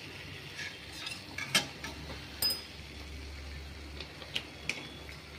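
Steel spatula clinking and scraping against a stainless-steel kadhai while spices are stirred into frying tomatoes: a handful of sharp clinks, the loudest about a second and a half and two and a half seconds in, one with a brief metallic ring.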